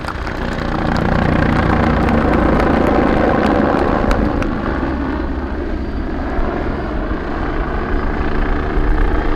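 A BO-105 helicopter flying aerobatics close overhead: the rapid chop of the main rotor blades over the twin turboshaft engines' running. It grows louder about a second in and eases off after about four and a half seconds as the helicopter passes.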